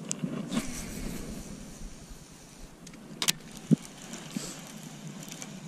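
Baitcasting reel being cranked to retrieve a lipless crankbait: a low, steady whir from the reel, with a few sharp clicks, the loudest about three and a half seconds in.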